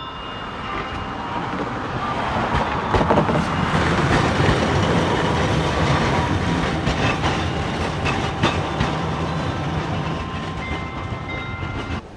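Tosaden streetcar passing, its running noise building to a peak a few seconds in and then slowly fading. Its wheels click sharply over the rail joints several times. The sound cuts off suddenly near the end.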